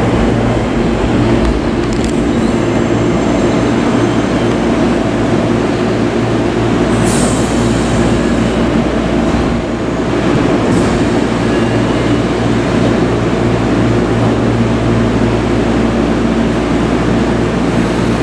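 Seibu 20000 series electric train coming into a station platform and standing there, a steady mix of running noise and electrical hum from the train's equipment, with a brief high squeal or hiss about seven seconds in.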